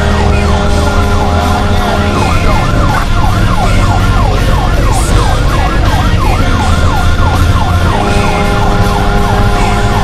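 Fire truck siren on a responding apparatus, heard from the moving truck, going in a fast yelp of about three rising-and-falling sweeps a second. A steady lower tone sounds under it for the first couple of seconds and again near the end, over the constant drone of the truck.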